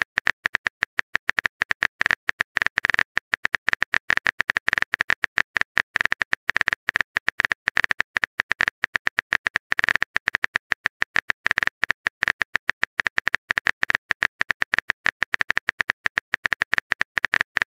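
Keyboard typing sound effect from a texting-story app: a rapid, uneven run of short clicks, several a second, one for each letter typed into the message box.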